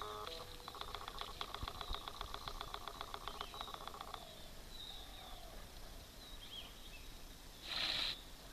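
Camcorder autofocus motor buzzing in a rapid, even pulse as the lens hunts for focus, stopping about four seconds in. Faint bird chirps follow, and a brief rushing hiss, the loudest sound, comes near the end.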